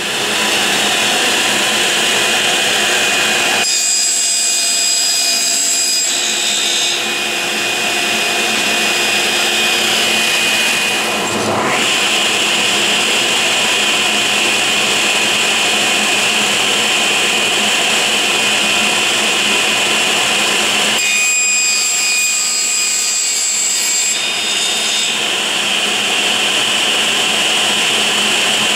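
Sliding table saw running at speed with a steady high whine while cutting plywood panels. The sound changes in character twice, for a few seconds each time.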